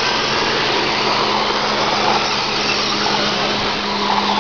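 Several radio-controlled race trucks running laps together on a dirt oval, their small motors making a steady, even whine.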